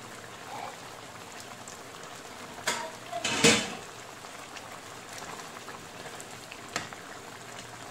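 Coconut-milk stew of jengkol, chicken livers and gizzards simmering in a wok, a steady bubbling hiss. A couple of knocks and a louder clatter come about halfway through, and a spatula stirs the pan near the end.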